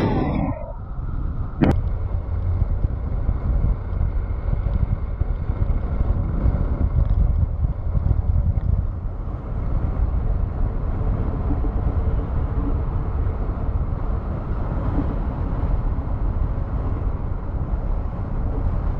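Steady wind noise and road rumble on the upper deck of a moving double-decker tour bus driving along a highway, with one sharp click near two seconds in.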